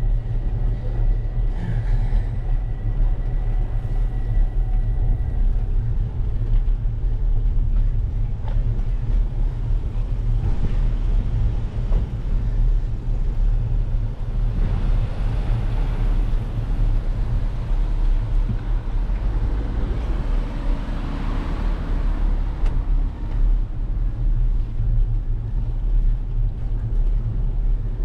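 Steady low wind rumble and road noise picked up by a bike-mounted action camera while riding along a paved street. A car passing in the middle adds a rising and fading hiss.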